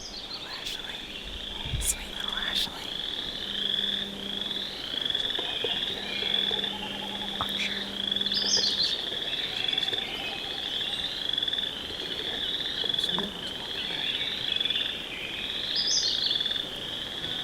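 A chorus of frogs trilling continuously, with a few short bird chirps over it.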